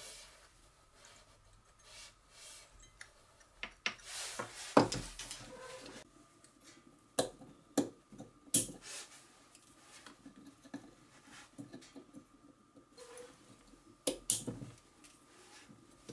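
Hard plastic battery-pack casing and its lithium cells being handled and pressed into place by hand: irregular clicks and knocks with light rubbing between them. The loudest knock comes about five seconds in.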